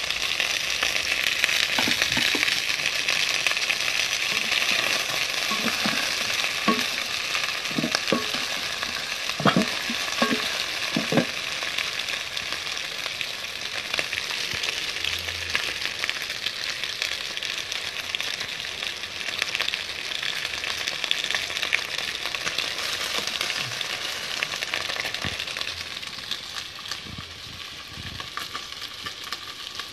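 Chicken pieces frying in a pot with a steady, dense sizzle, with a few short knocks from the stirring spoon against the pot in the first half. The sizzle eases off somewhat near the end.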